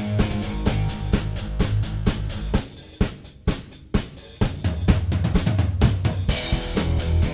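Background rock music driven by a drum kit, with bass drum, snare and cymbals over a bass line. About three seconds in the bass drops out for a moment, leaving sparse drum hits, and a cymbal wash comes in near the end.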